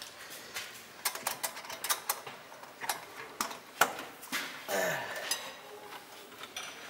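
Irregular light metallic clicks and knocks of hand tools, a pry bar among them, working at the tight V-band clamp on the exhaust downpipe. A short descending creak comes about five seconds in.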